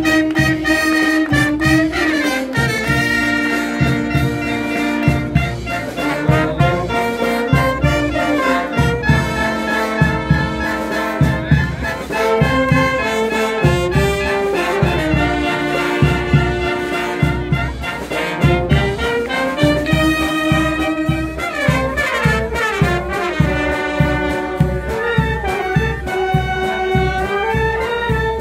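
A street band of clarinets, saxophones, trumpets and low brass playing an upbeat tune over a steady beat.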